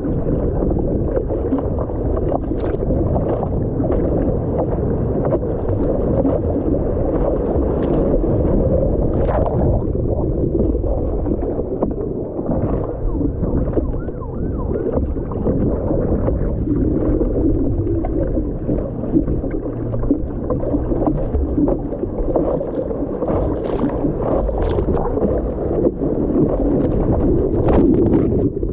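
Seawater sloshing and splashing around a surfboard as a surfer paddles it lying down, heard from a camera on the board's nose just above the water, with irregular sharp splashes from the paddling strokes. Near the end the camera is washed under the water.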